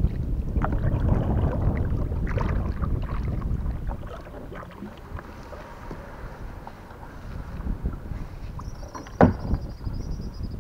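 Kayak paddle strokes dipping and splashing in river water, with wind rumble on the microphone over the first few seconds and one sharp knock about nine seconds in.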